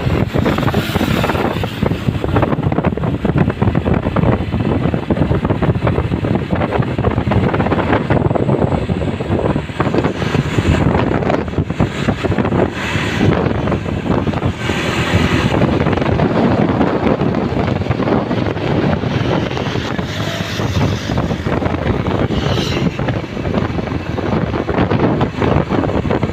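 Wind buffeting the microphone over the steady rumble of moving road vehicles, with no horn standing out.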